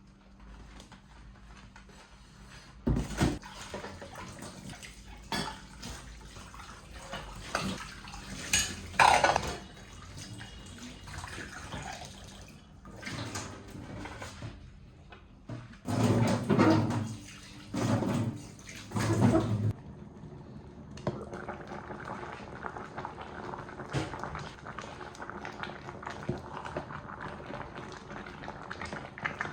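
Kitchen cooking sounds: pots, dishes and utensils knocking and clattering in irregular bursts, heaviest about halfway through. Then a steady low hiss takes over for the last third.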